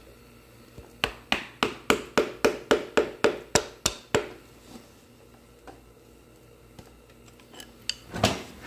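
Quick, regular metal-on-metal taps, about a dozen at roughly four a second, from a thin metal tool working caked grime off a bolt head on the engine. Then a few faint ticks, and a louder knock near the end.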